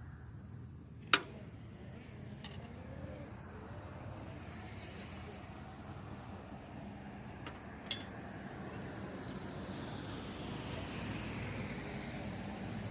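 A single sharp click about a second in and a fainter click near eight seconds, over a low steady rumble.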